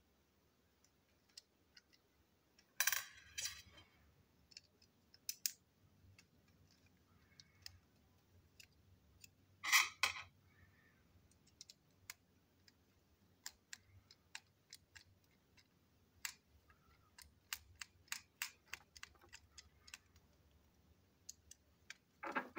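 Plastic toy train chassis being handled and worked on with a screwdriver: scattered light clicks and ticks of small plastic parts, with louder rattles about three seconds in, near ten seconds and at the very end.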